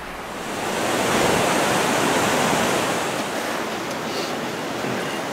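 Rushing water of a partly frozen waterfall, running steadily under and through the ice. It swells louder about a second in, then eases slightly after about three seconds.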